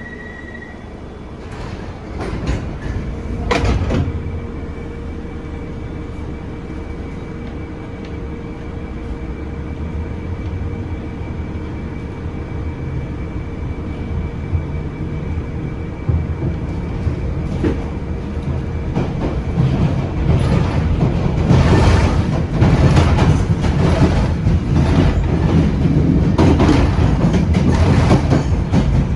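Bakerloo line tube train (1972 Stock) gathering speed, growing steadily louder with a steady hum. In the last several seconds the wheels clatter over the rail joints.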